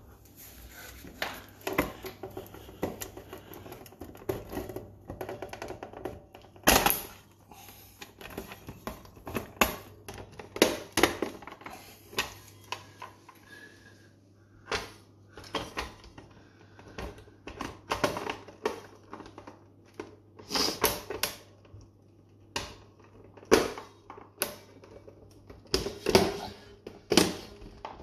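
Irregular sharp plastic clicks and knocks from a Hisense American-style fridge freezer's ice dispenser control panel as it is pressed and tapped to seat its clips flush, some loud, coming every second or so.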